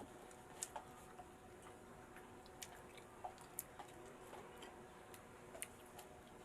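Faint chewing with sharp, irregular crunchy clicks, about a dozen scattered through, over a low steady hum.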